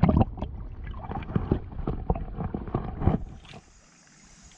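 Stream water splashing and sloshing right at the microphone in irregular surges. About three and a half seconds in it stops abruptly, leaving only a faint steady hiss of the flowing stream.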